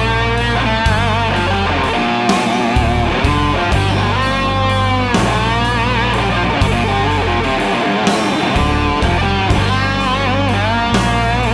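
Electric guitar solo from a sunburst single-cutaway electric guitar, with string bends and vibrato, over bass and a steady drum beat.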